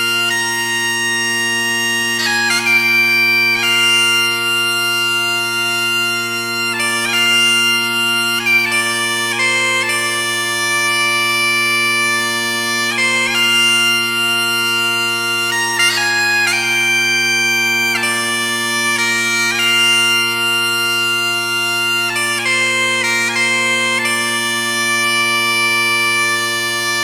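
Scottish bagpipes playing a tune: the chanter's melody steps from note to note, with quick flicks between notes, over a steady, unbroken drone.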